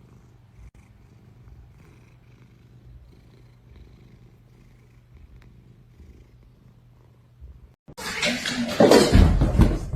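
Cat purring steadily, a soft low throb. About eight seconds in it cuts off and a loud, rough noise takes over.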